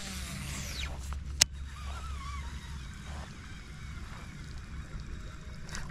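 A cast with a baitcasting reel: the spool whirs as line pays out, its pitch falling over about a second, then a single sharp click. A faint wavering call follows about two seconds in, over a low steady rumble.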